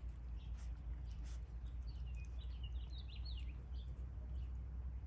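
Small birds chirping, a quick run of short high chirps about two to three and a half seconds in, over a low steady outdoor rumble.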